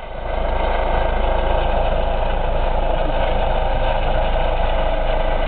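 Helicopter in flight overhead, its rotor and engine noise loud and steady.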